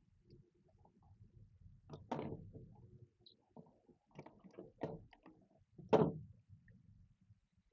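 Plastic humidifier parts being handled and fitted together: a few scattered knocks and scrapes, the loudest about six seconds in.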